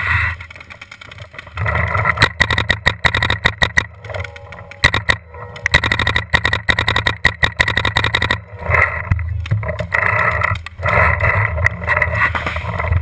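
Paintball markers firing in rapid strings of sharp shots, starting about two seconds in, with a brief lull about two-thirds through, over a steady low rumble.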